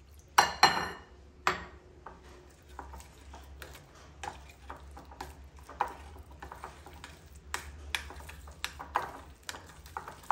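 A spoon scraping and knocking against a bowl while stirring thick gram-flour batter, in quick irregular clicks and scrapes. A glass clinks with a short ring about half a second in, with another knock a second later.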